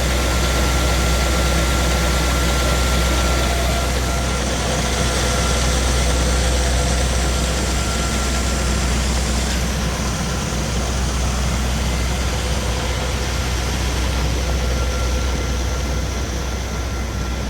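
Combine harvester running steadily while combining wheat: a constant low engine drone under a broad machinery rumble, with a thin steady whine.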